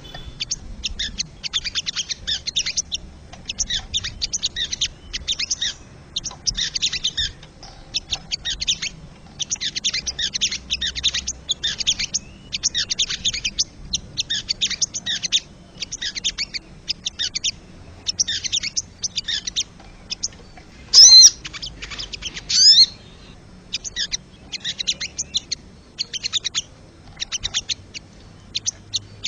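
Wild sogon (crested jay) calling: fast, dry rattling bursts repeated one after another, high-pitched. Two louder, sliding calls about three quarters of the way through stand out above the rattles.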